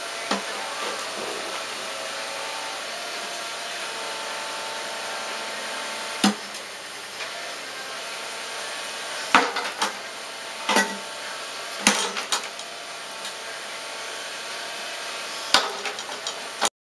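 Cat 303 mini excavator's diesel engine running steadily, with sharp knocks and clanks at irregular intervals, most of them in the second half.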